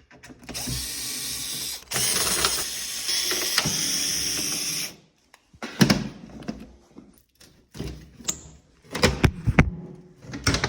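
Cordless drill/driver running in two spells of a second and a half and three seconds, backing screws out of an oven door, followed by scattered clunks and knocks as the door parts are handled.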